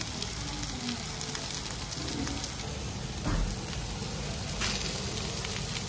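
Meat sizzling and spitting on a hot dome-shaped Genghis Khan grill pan, a steady crackling hiss, with one dull knock about three seconds in.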